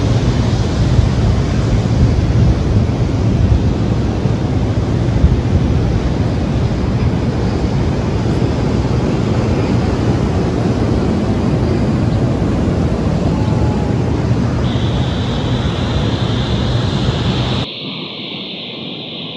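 Strong wind rushing over the microphone mixed with the rush of storm surf, a loud steady noise heaviest in the low end. About 17.7 seconds in it cuts abruptly to a quieter, thinner hiss of wind and waves.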